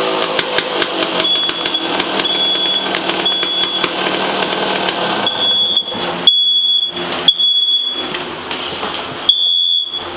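A 2003 Yamaha YZ250 two-stroke dirt bike engine is revved through an FMF Shorty silencer with worn packing, crackling and popping as it clears out after being loaded up. About five seconds in the engine drops much quieter and the popping gives way to a few sharp bangs. A smoke alarm beeps all the while in repeated high-pitched tones.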